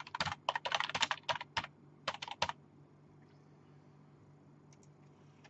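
Typing on a computer keyboard: a quick run of keystrokes that stops about two and a half seconds in.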